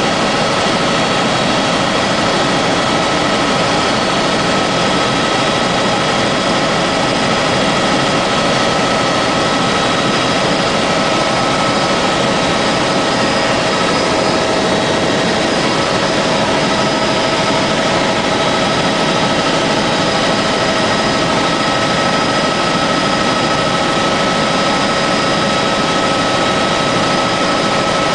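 Helicopter in steady cruising flight, heard from inside the cabin: an even engine and rotor noise with several steady whining tones over it, unchanging throughout.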